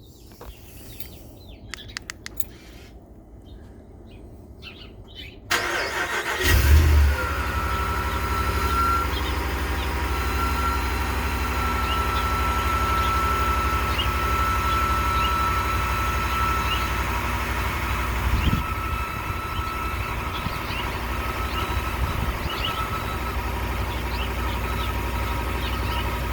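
2019 Ram 1500 engine cranked and started from cold, surging briefly and settling into a steady idle, with a steady high-pitched squeal from the serpentine belt drive over the idle. It is the cold-start squeal of a worn idler pulley and belt tensioner, the parts whose replacement cured it; the dealer had first blamed the alternator. A few faint clicks come before the start.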